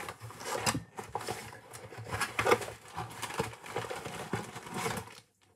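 Hands rummaging in a cardboard science-kit box, making irregular rustling and light tapping that stops shortly before the end.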